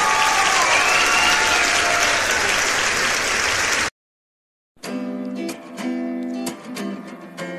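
Crowd applause and cheering that cuts off abruptly. After a short silence, acoustic guitar music begins with plucked notes.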